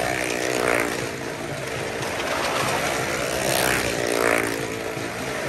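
Motorcycle engines revving hard as stunt bikes circle the vertical wooden wall of a well-of-death pit, with a car also on the wall. The engine note swells and bends up and down in pitch as the machines sweep past, loudest twice: about a second in and again near the end.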